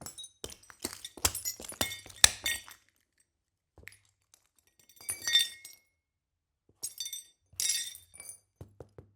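Broken glass shards crunching, with sharp clinks and tinkles: a dense run of crunches over the first three seconds, then two shorter bursts about halfway and near the end.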